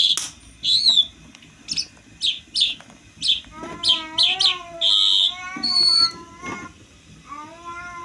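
Caged bird giving a run of short, sharp, high chirps. About halfway through, and again near the end, a long wavering mewing call joins in, with bird notes over it.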